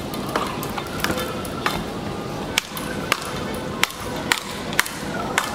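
Speedball rackets striking the ball tethered to the pole in a fast rally: a sharp crack roughly every half second to a second, as the two players hit it back and forth.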